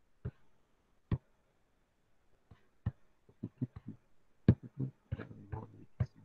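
Scattered short clicks and knocks at irregular intervals, faint against a near-silent background, coming closer together in the second half.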